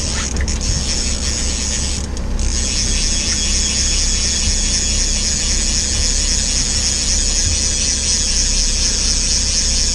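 Fishing reel ratcheting steadily as a hooked salmon is played on a bent rod, with the boat's outboard motor idling out of gear underneath.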